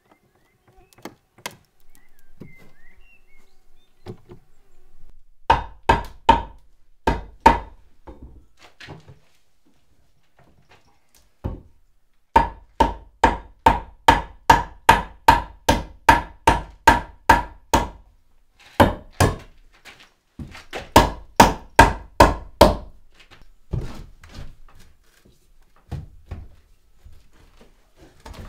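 Hammer blows on wood in runs of quick strikes, about two to three a second, each a sharp knock with a short ring. The longest run, about fifteen blows, comes near the middle, with shorter runs before and after.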